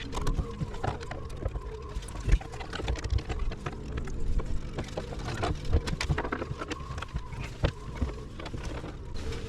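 Irregular clicks, taps and knocks of hand work on a boat's instrument panel as it is unscrewed and worked loose, over a steady low hum.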